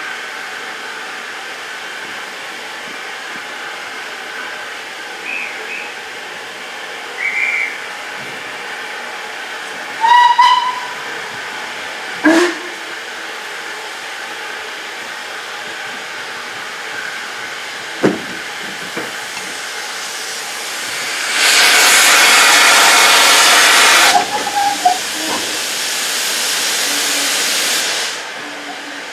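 Steam locomotive simmering with a steady hiss, with a short whistle about ten seconds in and a lower whistle about two seconds later. About twenty-one seconds in a loud rush of steam starts from the open cylinder drain cocks as the engine gets under way; it eases after a few seconds and stops near the end.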